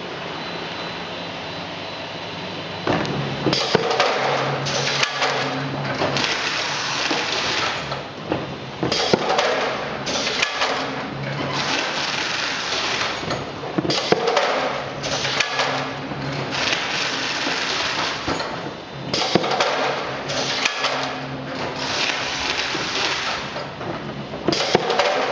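SIAT SM116 automatic carton sealer running: a steady motor and belt hum, then, from about three seconds in, repeated long noisy stretches full of clicks and clatter as a box is carried through and its top flaps are folded and taped.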